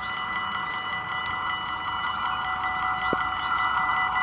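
Warning bells of a Dutch automatic half-barrier level crossing ringing steadily, over a rushing noise that slowly grows louder as a LINT 41 diesel railcar approaches on the line. A single short click comes about three seconds in.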